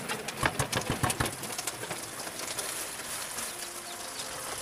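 A quick run of sharp knocks and clatter from a steel bowl and a large knife handled on a wooden chopping block in the first second or so, then a steady trickle of water from a tap running into a steel bowl.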